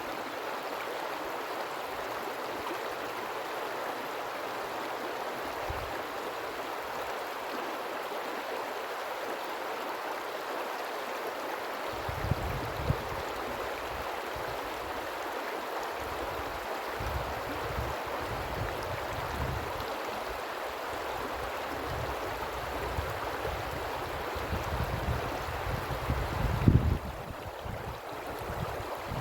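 River water flowing with a steady rushing sound. From about halfway through, a low rumble comes and goes, with a couple of brief louder bumps, the loudest near the end.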